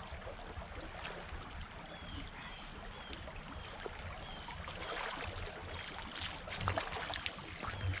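Shallow rocky creek running steadily, with splashing from someone wading through the water, strongest around five to seven seconds in.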